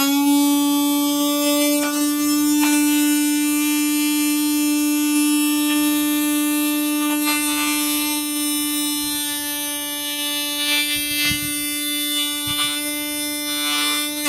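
Easy Blender EB1101 cordless rechargeable blender's motor running its four-blade assembly with an empty jar, a steady high hum that holds one pitch and cuts off at the end.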